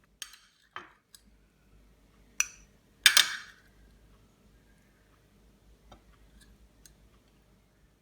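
Dishes and utensils clinking and knocking as they are handled: half a dozen separate clinks, the loudest about three seconds in with a short ring.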